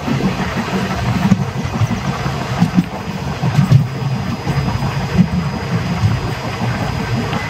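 Old ICF passenger coach running along the track, heard from inside: a steady low rumble with irregular louder jolts and a few short knocks.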